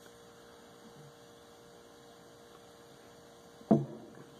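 Faint steady electrical hum of room tone with a thin steady tone, broken near the end by one short, sudden sound.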